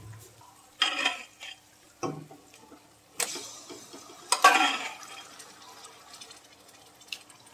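Thick, wet ground mustard-greens paste (saag) plopping off a steel ladle into a steel kadhai of fried masala, with the ladle scraping against the pan: four separate splats and scrapes about a second apart, the loudest about four and a half seconds in.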